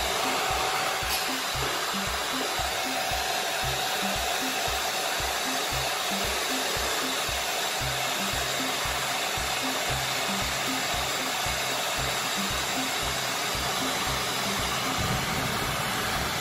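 Handheld hair dryer blowing steadily, an even rush of air with a steady whine, used to dry a dog's fur.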